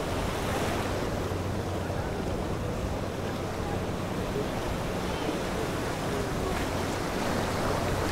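Steady wind and surging water with a low, even motor hum underneath.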